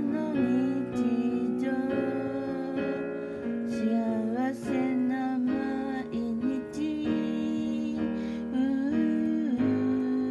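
Piano playing a slow, steady passage of chords and melody, with a woman's wordless voice gliding over it.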